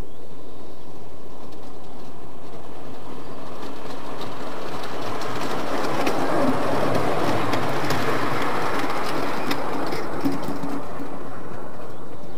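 Ride-on miniature park railway train rolling past close by, its wheels clicking over the rail joints. The rumble builds to a peak about halfway through, then fades as the cars roll away.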